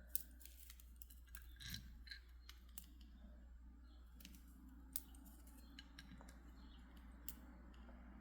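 Faint, irregular clicking of small stone beads being handled and strung, with a few sharper clicks among them.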